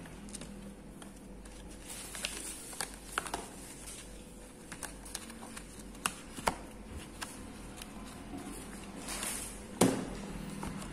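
Cardboard and paper packaging being handled: scattered small taps, clicks and rustles, with one louder thump near the end.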